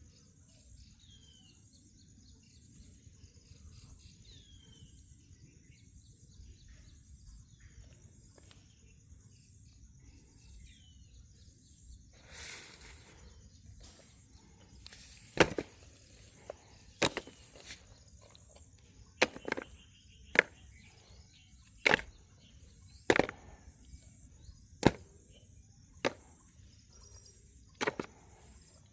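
Quiet outdoor ambience with a low rumble and a steady high-pitched whine, and a few faint chirps in the first few seconds. From about halfway, about nine sharp knocks come one to two seconds apart.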